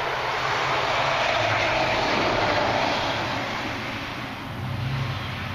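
A vehicle passing on the road, its tyre and engine noise swelling and then fading away over about four seconds, with a low hum near the end.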